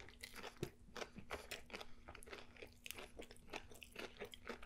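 Close-miked chewing of a mouthful of crusty bread sandwich filled with crispy chicken and onion rings: a steady run of small, faint crunches and crackles.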